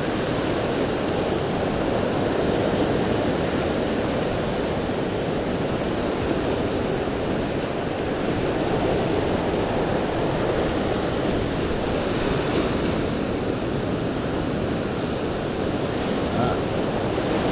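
Ocean surf breaking and washing over rocks and sand, a steady unbroken rush of waves.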